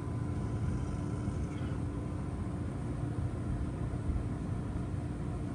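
Steady low rumble with a faint steady hum, a motor running in the background.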